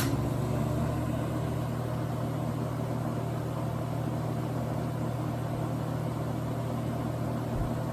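Lasko Super 12-inch box fan's FASCO shaded-pole motor running on high speed: a steady electric hum under the even rush of air from the blades. A click at the very start as the speed is switched up.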